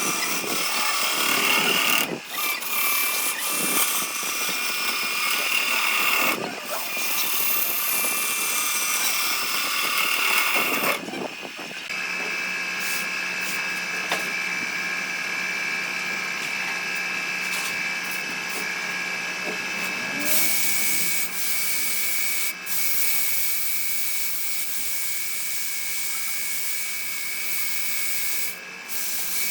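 A power tool working wood: a steady motor whine over the noise of the cutting, changing in character about twelve seconds in and again about twenty seconds in.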